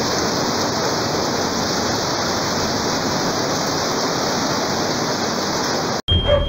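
Heavy rain pouring down, a dense steady hiss. It cuts off abruptly about six seconds in and gives way to a steady high tone.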